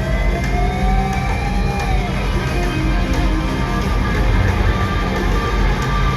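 Loud live rock band playing, with an electric guitar note sliding upward and held, then dropping away about two seconds in.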